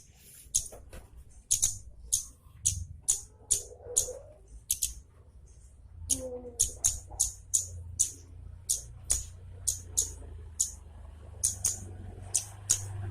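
Small honey-eating songbird, sold in Indonesia as kemade or baret merah, giving a sharp 'nyecret' call: a run of short, high-pitched chirps, about two a second with a brief pause midway.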